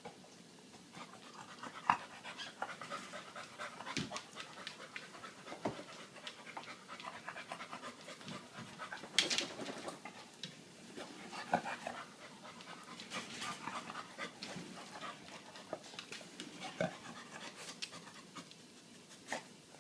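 A dog panting, with irregular small clicks and knocks; the loudest burst comes about nine seconds in.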